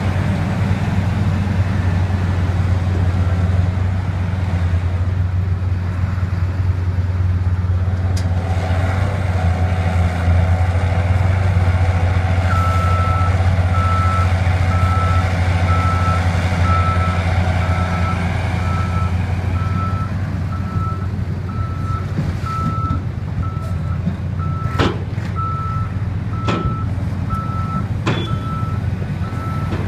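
Heavy diesel engines of a Liebherr 984 mining excavator and dump trucks running steadily with a deep hum. From about halfway through, a truck's reversing alarm beeps about once a second as a dump truck backs into loading position. A few sharp bangs come near the end.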